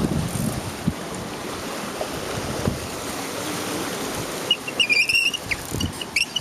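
Wind buffeting the microphone over the wash of the sea on a rocky shore, with low gusty thumps. A few short high squeaks come about five seconds in.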